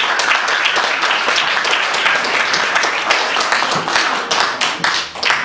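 Audience applauding with dense, steady clapping that fades away near the end.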